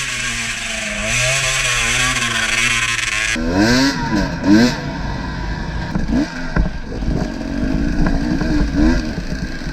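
Off-road motorcycle engines: a steady running note with a hiss for the first three seconds or so, then an abrupt cut to engines revving up and down repeatedly, with several rising throttle blips.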